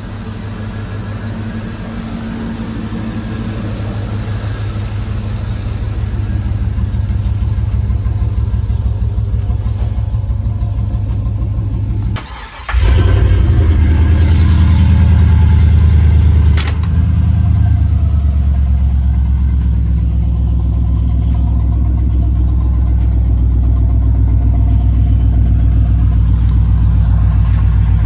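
Car engine idling steadily and slowly getting louder. About twelve seconds in it dips for a moment, then comes back much louder and deeper and holds there.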